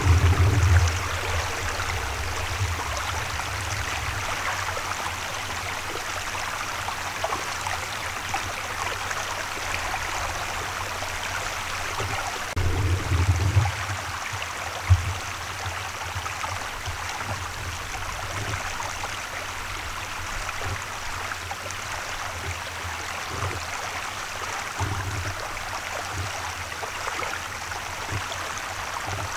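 Open river water running past an ice edge, a steady rushing hiss. A few low rumbling bumps come through near the start and around the middle, with one short sharp thump just after.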